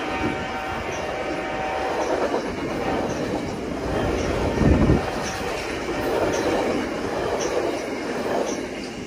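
Stainless-steel passenger cars of VIA Rail's The Canadian rolling past close by: a steady rumble and clatter of steel wheels on the rails, with faint regular clicks about once a second as wheels cross the rail joints. The sound swells louder about halfway through.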